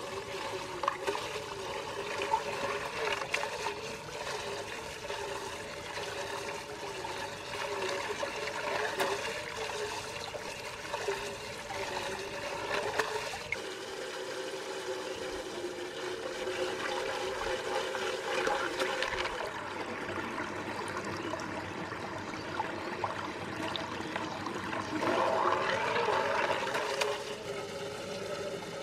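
Water swirling and draining down the central hole of a whirlpool vortex, a steady rush of water with a wavering hum beneath it.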